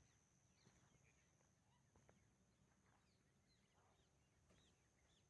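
Very faint bird calls: scattered short chirps, many of them falling in pitch, over a thin steady high tone.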